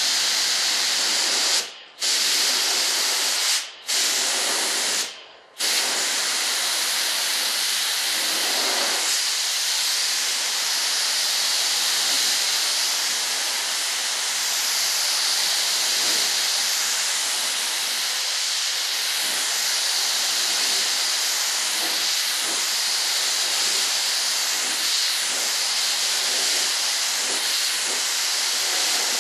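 Gravity-feed compressed-air spray gun hissing steadily as it sprays urethane primer, cutting out briefly three times in the first six seconds.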